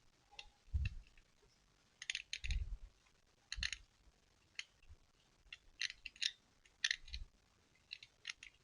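Irregular light clicks and soft knocks of something small being handled, in uneven clusters about a second apart, a few clicks landing with a dull low thump.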